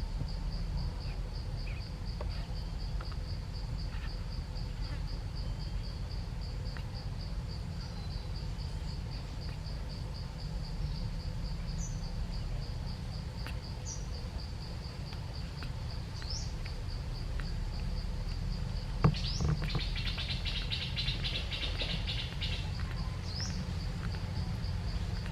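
Insects trilling steadily in a high, fast-pulsing drone, with short bird chirps here and there, over a low rumble. About three quarters of the way through comes a sharp knock, then a couple of seconds of rapid chattering pulses.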